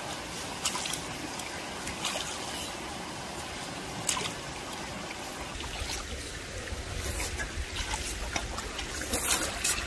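Steady trickle of running water, with scattered light clicks and rustles. A low rumble comes in about six seconds in.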